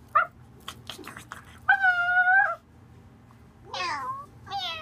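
Meowing: two short squeaks at the start and a few light clicks, then one long, level meow about two seconds in, followed by two shorter meows that fall in pitch near the end.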